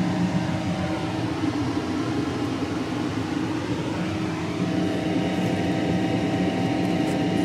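A steady mechanical hum with a few held tones, shifting slightly about four and a half seconds in.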